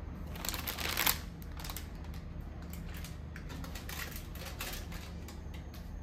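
Light clicks and a brief scraping rustle of small objects being handled, loudest about half a second to a second in, over a steady low hum.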